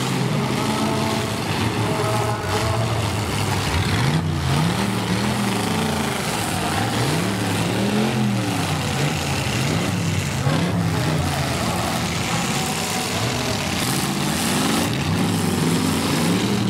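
Demolition derby cars' engines revving up and down over and over, pitch rising and falling about every second, as the cars push and ram one another in the dirt.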